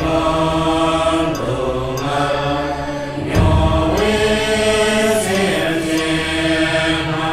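Background music with a chanted mantra: a voice holds long, steady notes over a low drone, moving to a new note every second or so.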